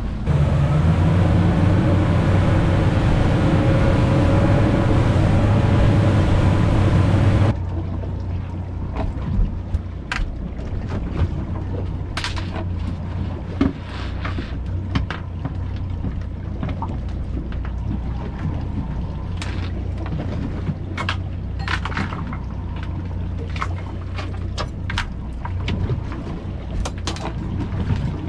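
A boat engine running under way with wind and water rush for about seven seconds, then an abrupt change to a steady low engine hum at rest, with scattered clicks and knocks of fishing tackle being handled on deck.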